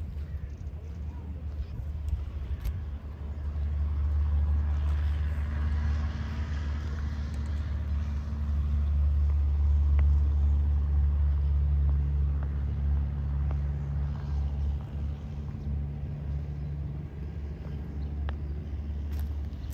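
Low engine rumble of a motor vehicle on the street, growing louder over the first half and easing off after its peak about two-thirds of the way through.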